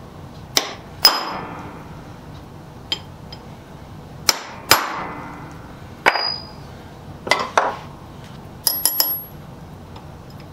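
Hammer striking a centre punch on a steel plate to mark a hole centre for drilling: sharp metallic blows that ring, mostly in pairs, with a quick run of three or four taps near the end.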